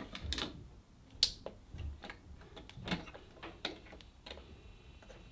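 Scattered plastic clicks and taps of hands working a suitcase record player's controls and tonearm, a sharp click about a second in and a few more later.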